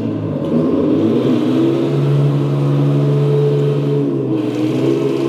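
Henglong 1:8 Tiger I RC tank's sound unit playing a simulated tank engine through its speaker at maximum volume. The engine note revs up about two seconds in and settles back down near the end.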